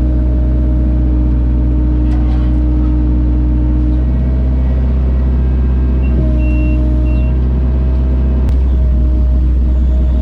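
Large vehicle engine running steadily with a deep, even drone, and a few short high beeps about six seconds in.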